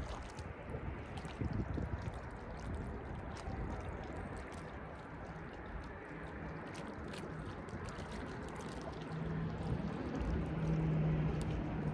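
Waterside noise of moving water against a boat or shore. A steady low hum comes in about nine seconds in and grows louder toward the end.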